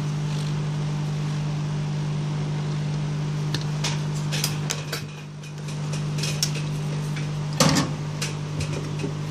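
Hot-air rework gun running at about 400 °C, its fan giving a steady blowing hum that dips briefly about halfway through. Small clicks and knocks of the circuit board and tools on the workbench sound over it, the loudest knock near the end.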